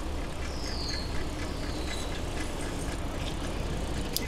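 Mountain bike on the move: a steady low rumble of riding noise with scattered clicks, and three short high squeals that fall in pitch.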